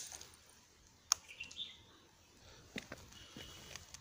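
A few sharp clicks, the loudest right at the start and another about a second in, as the motorcycle's ignition key and switches are worked, with faint bird chirps about a second and a half in.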